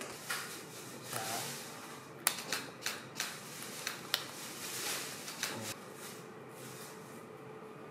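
Clear plastic food-box lids crackling and clicking under gloved hands as sticker labels are pressed onto them: soft rustles and a quick run of sharp clicks, dying away after about six seconds.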